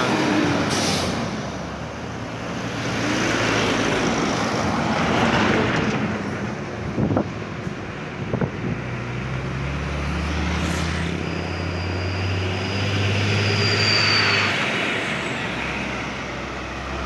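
Road traffic passing on a busy road, its tyre and engine noise swelling and fading as vehicles go by. Two short sharp sounds come a little past the middle. Then a large diesel engine runs with a low, steady drone, joined by a thin high whine for a few seconds.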